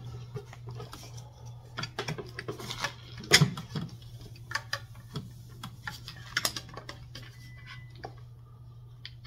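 Irregular small clicks, taps and knocks of hands handling wiring, a heavy battery cable and parts on a plastic workbench, the loudest about three and a half seconds in, over a steady low hum.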